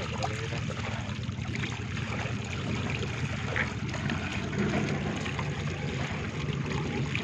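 Muddy water gushing steadily through a cut in a mud bank and splashing down into a woven bamboo basket full of small fish.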